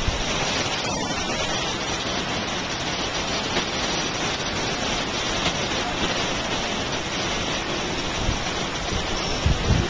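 Steady rushing noise of Yosemite Falls and wind, with a few brief low thumps near the end.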